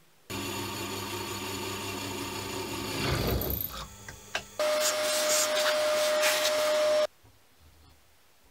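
Drill press running and drilling mounting holes into the metal lathe carriage. The motor starts suddenly and its sound shifts partway through. In the later part a steady high whine sits over the cutting noise, and it cuts off suddenly about seven seconds in.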